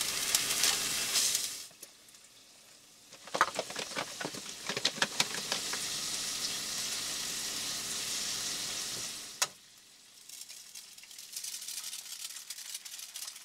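Bacon and sausage patties sizzling in a frying pan, a steady hiss with a few sharp clicks and taps of utensils on the pans about three to five seconds in. The sizzle breaks off into near silence twice, for a second or so each time.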